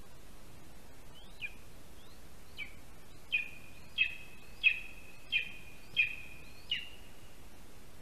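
Lesser spotted eagle calling: a series of about nine high calls, about one and a half a second. Each starts with a quick downward flick into a short held note. The calls start softly about a second in, grow louder, and ease off near the end.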